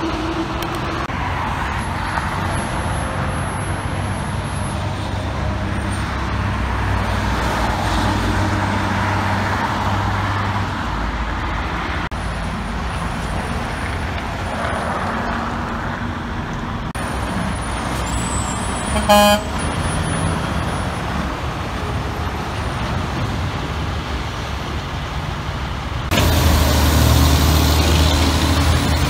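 Heavy diesel dump trucks running as they pull through an intersection, over steady traffic noise. A short horn toot sounds about two-thirds of the way through. Near the end a louder truck engine comes in suddenly.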